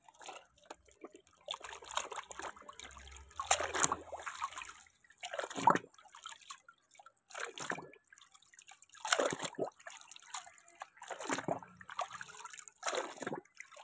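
Water splashing and dripping as a plastic toy jeep is dipped and swished by hand in a tub of muddy water, in separate splashes every second or two.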